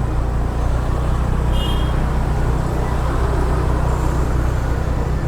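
Steady low rumble of a car driving slowly in town traffic, heard from inside the cabin, with a brief faint high beep about a second and a half in.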